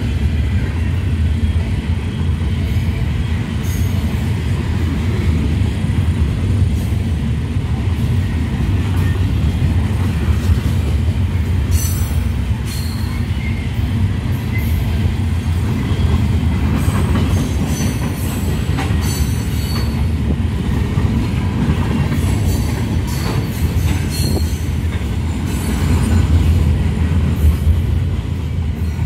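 Open-top gondola freight cars rolling past close by, a steady rumble of steel wheels on the rails. Brief high wheel squeals come several times. The rumble eases slightly as the last car passes near the end.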